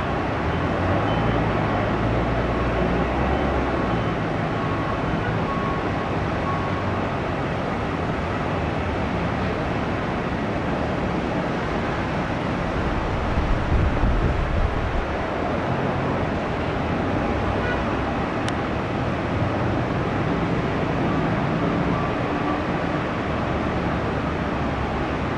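Jet airliner engines at takeoff power during a departure roll: a steady roar with a low rumble that swells briefly near the middle.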